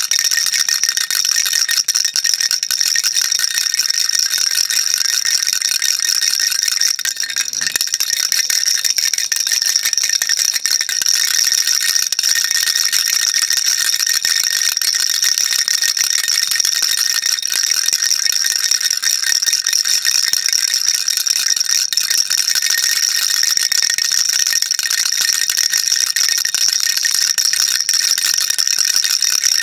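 A baby rattle shaken rapidly and without a break, a dense, even, high clatter of small beads.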